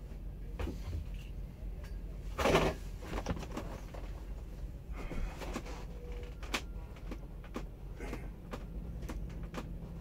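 Scattered knocks and clicks of a Freightliner sleeper cab's bunk and fittings as a man moves about and braces his hands on the bunk edge, with one louder clatter about two and a half seconds in. A steady low hum runs underneath.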